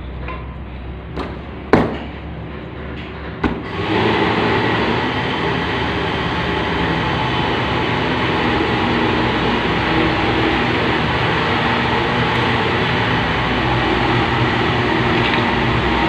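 A few sharp metal clicks and knocks in the first few seconds as a screw is driven by hand to fix a refrigerator's condenser coil to the back panel. About four seconds in, a loud, steady machine running noise with a few fixed tones sets in and continues.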